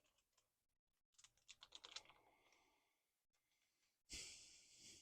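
Near silence with faint clicks from small parts being handled, a quick run of them about one to two seconds in, then a brief hissing rustle near the end that fades.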